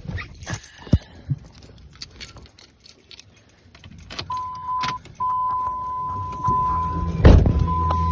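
Keys jangling and clicking, then a steady electronic warning chime in the Dodge Ram's cab that sounds in long stretches with short breaks. Near the end the engine turns over and fires with a loud thump, then settles into a steady low idle under the chime.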